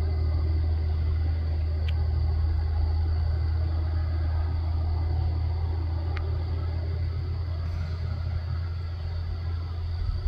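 Wind buffeting the microphone: a steady low rumble, with two faint ticks about two and six seconds in.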